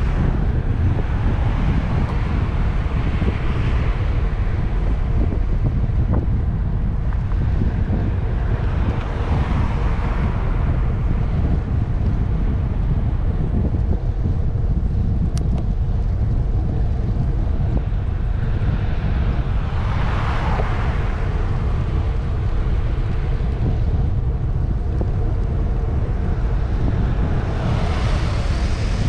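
Wind buffeting a bike-mounted action camera's microphone as a steady low rumble while riding. Passing cars swell and fade over it four times: a few seconds in, about ten seconds in, about twenty seconds in, and near the end.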